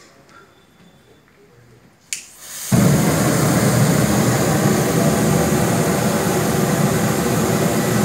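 Mosquito-killer aerosol spray, kerosene and pesticide propelled by LPG, set alight and burning as a jet of flame. A sharp click about two seconds in, then a sudden loud, steady rushing noise of the burning spray that keeps going. It is the flammable propellant-and-kerosene mist catching fire.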